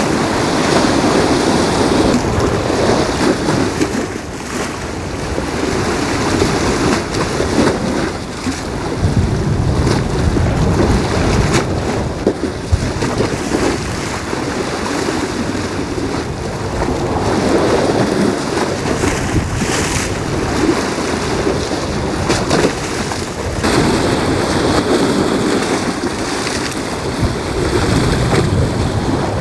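Wind gusting across the microphone: a loud, uneven rush that swells and eases, with a couple of brief clicks along the way.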